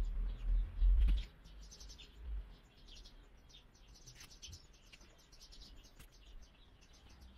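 Small birds chirping in quick, repeated short calls throughout. A few low rumbling buffets are loudest in the first couple of seconds.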